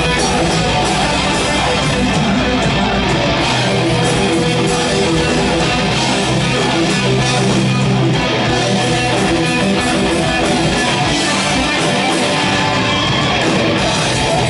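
Thrash metal band playing live and loud, electric guitars to the fore, with no vocals.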